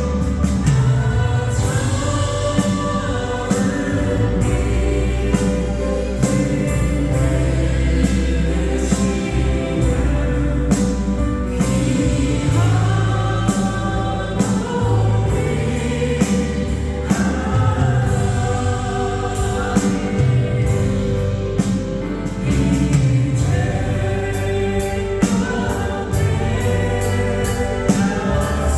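A group of singers performing a Christian praise song in chorus with band accompaniment, with a steady beat of light percussion ticks.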